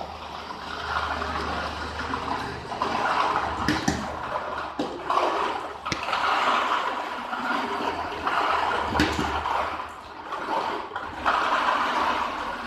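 Lottery draw machine running, its cylindrical plastic capsule balls being churned inside: a rushing noise that swells and fades in surges, with a low motor hum at first and a few sharp knocks of balls striking.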